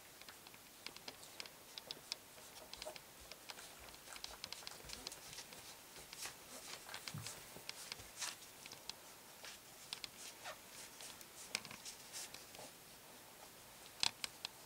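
Three-week-old golden retriever puppies shuffling and crawling on a fabric mat, giving faint, irregular scratching and light ticking sounds, busiest near the end.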